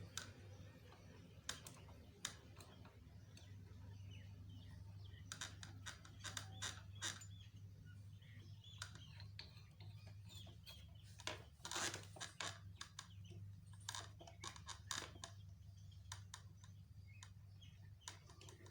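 Scattered small clicks and taps of metal parts being handled as the lock washer and nut are fitted onto a sewing machine's handwheel, over a faint steady hum.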